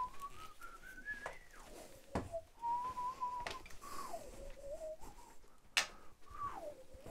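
A person whistling a slow, wandering tune, the notes sliding up and down, with a few sharp knocks, the loudest near the end.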